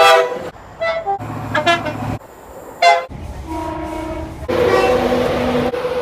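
Train air horns sounding in a string of quickly cut clips: short blasts and held chords of several notes, with the loudest sharp blasts at the start and about three seconds in.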